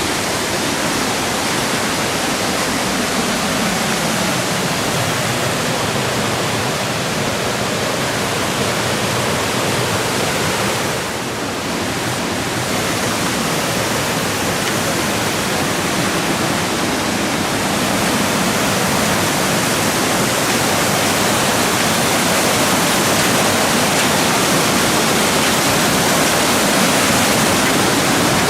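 Mountain stream rushing over rocks: a loud, steady wash of water that dips briefly about a third of the way in and grows slightly louder toward the end.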